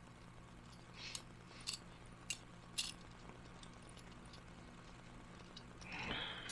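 A few faint, sharp clicks and clinks of small model-kit parts being handled and fitted, over a low steady hum. A short breathy sound comes near the end.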